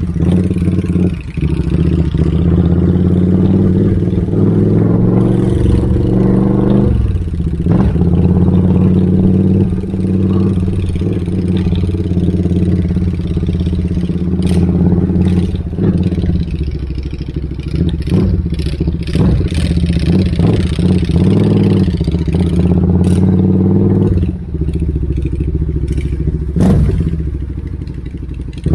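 Motorcycle with a loud open exhaust running steadily while riding, its note dipping briefly about seven seconds in as a gear changes. Scattered short clicks and clatter in the middle.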